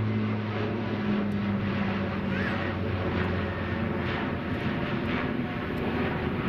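Airliner passing close, a steady loud rush of engine noise with a low hum that drops slightly in pitch as it goes by.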